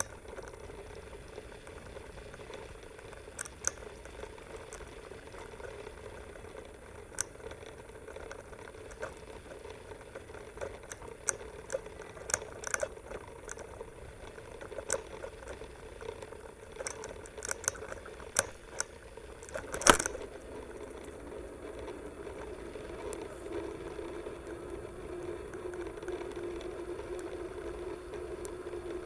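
Mountain bike ridden over rough ground, its frame and handlebar camera mount rattling and clicking irregularly over a steady low hum. One loud knock comes about two-thirds of the way through, and the hum turns steadier near the end.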